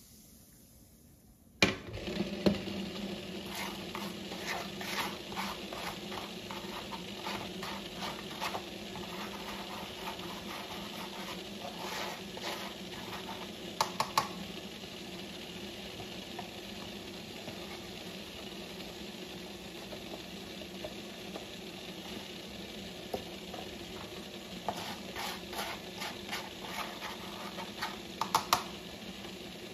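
Baking soda and hot water being stirred in a plastic bowl: a steady hiss with small clicks and scrapes against the bowl. A sharp knock comes about two seconds in, and a few louder ticks later on.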